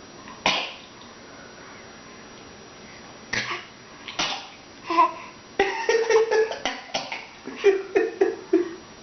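Coughing: single sharp coughs about half a second, three and a half and four seconds in, then a quick run of coughs from about five and a half seconds, mixed with short pitched voice sounds.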